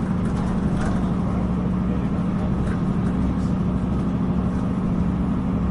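Steady running noise inside a moving passenger train: a constant hum over a low rumble from the wheels on the track, with a few light clicks.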